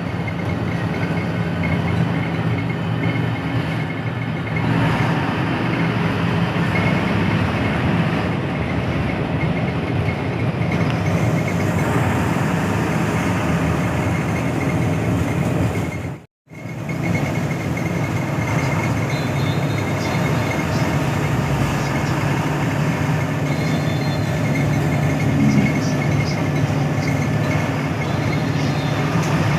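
Diesel engine of a front-engined Hino AK8 bus running steadily. The sound drops out briefly about 16 seconds in.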